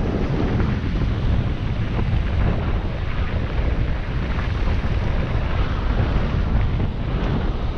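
Wind rushing and buffeting over a mountain biker's camera microphone during a downhill run, a steady low rumble with a few faint knocks from the bike on the trail.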